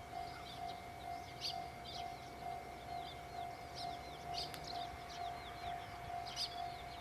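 Japanese railway level-crossing warning bell ringing, an even electronic ding about twice a second that stops near the end, warning of an approaching train. Small birds chirp over it.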